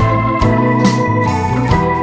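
Background music: sustained organ chords over a steady beat, with a drum hit about every second.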